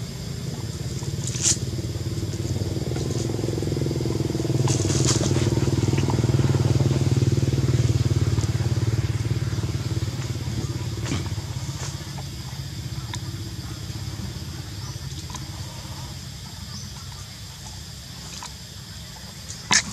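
Low engine drone of a passing vehicle, growing louder over the first half and then slowly fading away, with a few sharp snaps or crackles, the loudest just before the end.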